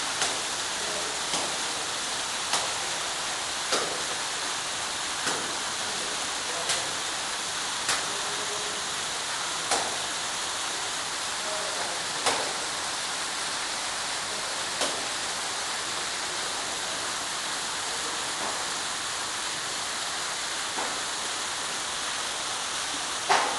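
Water pouring steadily from an artificial waterfall: an even rushing hiss, with a short sharp splash or tick standing out every second or two.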